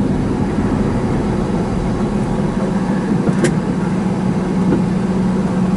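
A vehicle's engine idling steadily, heard from inside the cab as a low hum, with a single sharp click about three and a half seconds in.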